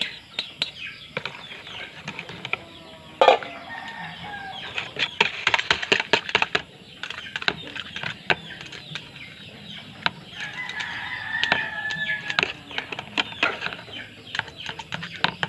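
Chickens clucking and a rooster crowing in the background, with one long crow about ten seconds in. Over them a spoon clicks and scrapes against a plastic mixing bowl as batter is stirred, with one sharp knock about three seconds in.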